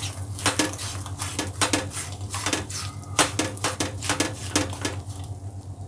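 Frying pan on a gas stove clattering and clinking as a hand presses a roti flat onto the egg in it: a run of irregular light clicks that stops about five seconds in.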